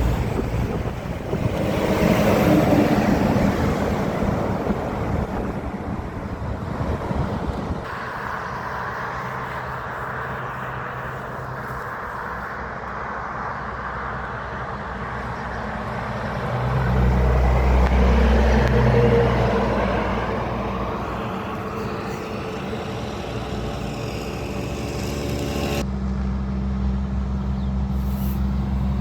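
Heavy trucks passing on a road, their diesel engines running with a low drone that swells loudest a little past halfway, and the sound changing abruptly twice.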